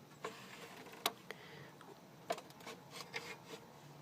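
A few faint, scattered clicks and light rubbing from hands handling parts inside an open desktop PC case.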